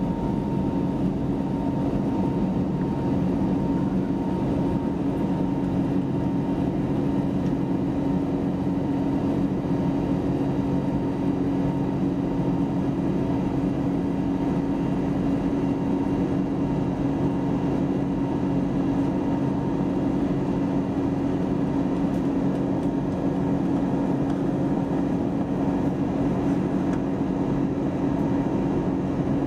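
Cabin noise inside an Airbus A320neo airliner: a steady drone of engines and rushing air with a constant low hum, unchanging throughout.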